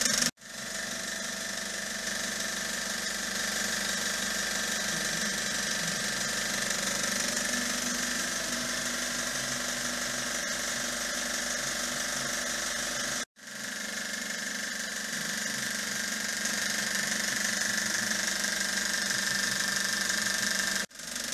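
Historic FC1 cinema projector mechanism running on a test run, its motor, belt drive and shutter turning with a steady mechanical whir. The sound drops out abruptly twice, about 13 seconds in and near the end.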